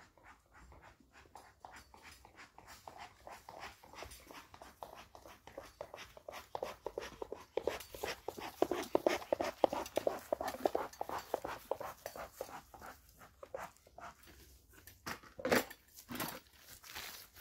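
A dog panting rapidly close by, the quick breaths swelling louder in the middle. Near the end there are two louder knocks as a wooden tool tote is set down.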